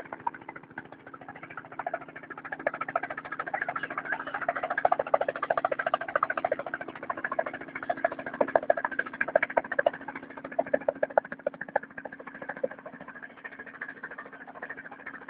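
A toy helicopter's small electric motor and rotor whirring steadily, with a fast, uneven rattle over the hum.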